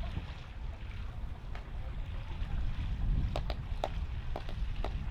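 Wind buffeting the microphone with a low, fluttering rumble. A quick series of sharp clicks comes in during the last couple of seconds.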